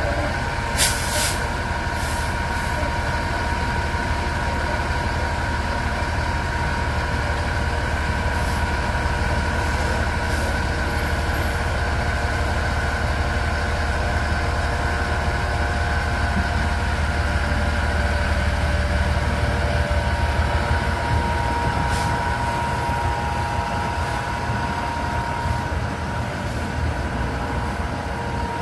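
Heavy flatbed truck's engine running steadily: a low hum with a steady higher tone over it. A few sharp clicks or knocks come through, the loudest about a second in.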